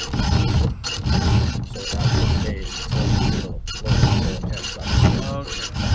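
Round file rasping across the cutters of a chainsaw chain by hand, in repeated strokes about one a second. Each stroke digs down to deepen the gullet.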